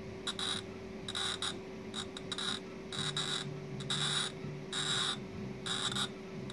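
Glass-cutter wheel scoring a glass bottle as the bottle is turned by hand on the rollers of a homemade bottle-cutting jig: a scratchy hiss in short bursts, about one a second. The wheel bites only in patches because the bottle is uneven.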